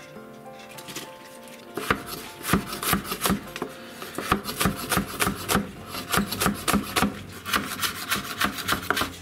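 Chef's knife chopping green onions on a wooden cutting board: a run of quick, uneven knife strikes against the board, about three a second, starting about two seconds in.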